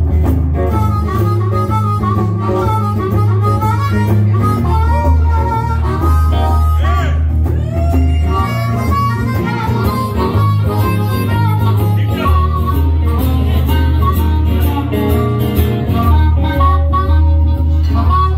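Blues harmonica solo with bent, wavering notes, over electric and acoustic guitar accompaniment played live.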